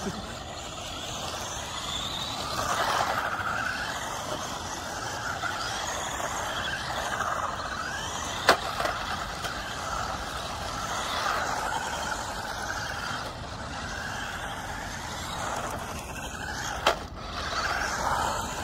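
Two 1/16-scale 4WD electric RC cars (SG1603 and SG1604) driving on asphalt, their motors whining up and down with the throttle over a steady hiss of tyre and road noise. Two sharp knocks, one about eight and a half seconds in and one near the end.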